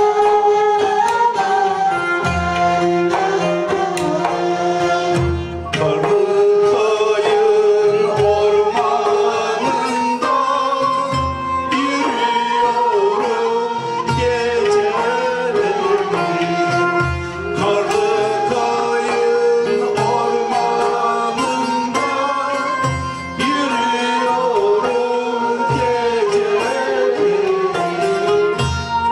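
Turkish folk music ensemble playing with a singer: melodic instrument and vocal lines over low, regular drum beats.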